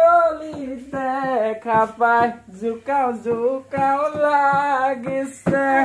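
A person singing unaccompanied, in short held phrases with gliding pitch.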